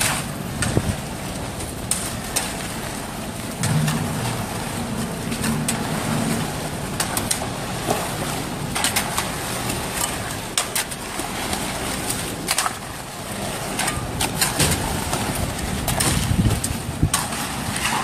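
Aimix concrete mixer pump running steadily during a pour, pushing concrete out through its delivery hose. Frequent sharp knocks and scrapes of shovels and rakes working the wet concrete sound over it.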